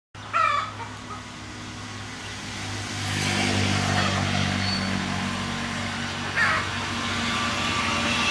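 A motor running steadily with a low hum that grows louder about three seconds in, and two short high-pitched sounds, one near the start and one about six seconds in.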